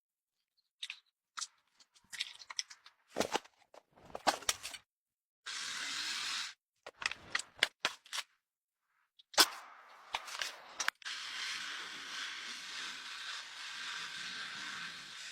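A string of sharp clicks and knocks, then a steady hiss that starts briefly about five seconds in and runs again from about eleven seconds in.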